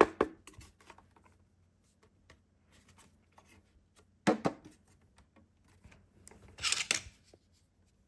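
Light clicks and knocks of a small ABS plastic RC jet boat being handled, with one sharper knock about four seconds in and a brief rustling scrape near the end.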